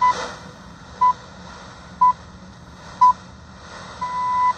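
The BBC World Service Greenwich time signal ('the pips') played through a portable shortwave radio's speaker: four short high beeps one second apart, then a longer final pip about four seconds in that marks the top of the hour. A steady shortwave hiss runs underneath.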